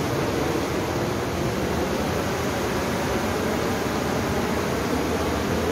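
Mountain stream rushing steadily over boulders.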